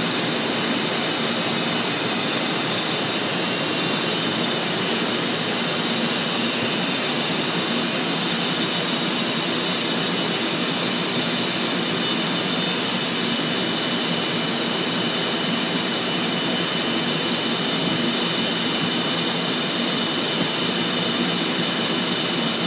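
CNC mill's spindle driving a WhisperKut Plus carbide end mill through 6Al-4V titanium at 3,438 RPM: a steady cutting noise, a dense hiss with a few high whining tones, unchanging in level.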